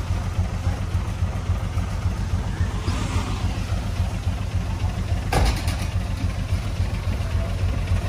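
Heavy diesel engine of earthmoving equipment running steadily with a low, pulsing note. A swell of noise comes about three seconds in, and a single sharp knock about five seconds in.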